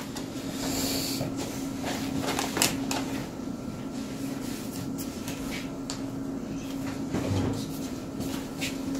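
A steady low electrical hum, with scattered clicks and rustling from handling things close by.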